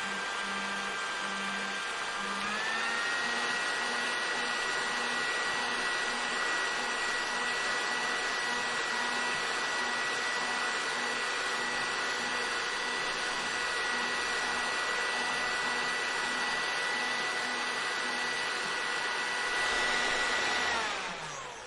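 Hair dryer running, a steady rush of air with a motor whine. About two and a half seconds in, the whine steps up to a higher pitch. Near the end it falls in pitch and dies away as the dryer spins down.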